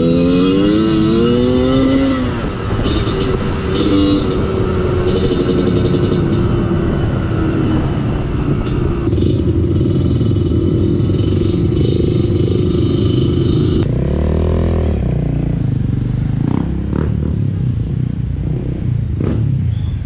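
Dirt bike engine running under load: it revs up over the first two seconds, holds a steady speed for about twelve seconds, changes revs again, then runs lower and rougher with knocks and clatter near the end.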